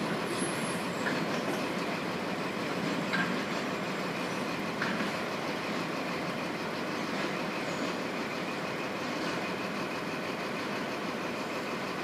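Wagons of a slow engineers train rolling on the rails: a steady rumble and rattle with a few faint clicks.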